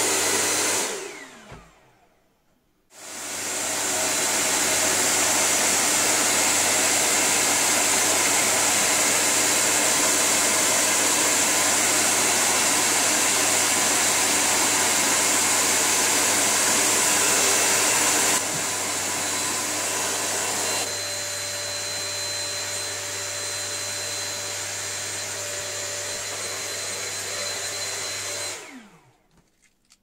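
Hair dryer blowing at its maximum power. It is switched off about a second in, its fan winding down, then switched back on about three seconds in. In the second half it gets quieter in two steps, and near the end it is switched off, the fan winding down again.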